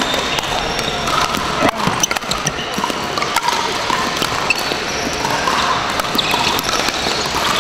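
Pickleball paddles hitting a hard plastic ball: a few sharp pops during a rally, the strongest right at the start and just before two seconds in, over the steady din of other games in a large hall.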